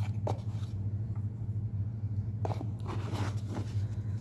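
Faint scraping and rustling of packaging being handled, a few short brushes, over a steady low electrical hum.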